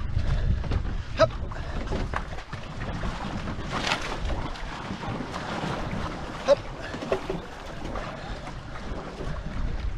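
Paddles stroking and water rushing along the hull of a two-person racing canoe under way, with a steady rumble of wind on the microphone. Two sharp knocks stand out, about a second in and again past the middle.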